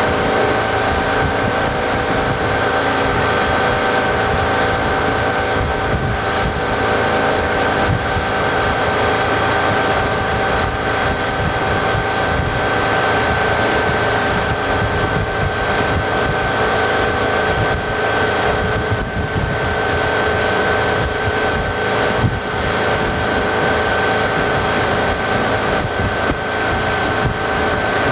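Motorboat engine running at a steady pitch, with wind buffeting the microphone.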